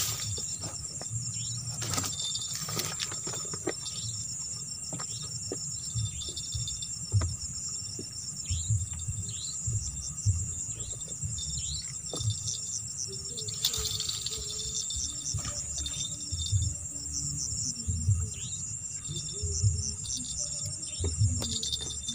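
Night insects, crickets among them, trilling steadily in a high band, with many short falling chirps over the top. Under them runs a low, irregular pulsing beat.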